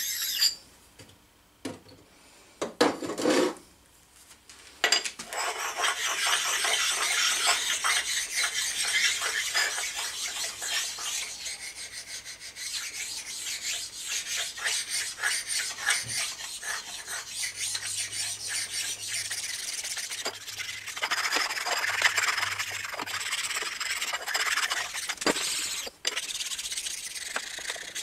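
A flat bench stone rubbed back and forth along the cast-iron ways of an Atlas 10F lathe, a continuous dry scraping, stoning down rough spots on the ways. It starts with a few short strokes, settles into steady strokes from about five seconds in, and pauses briefly near the end.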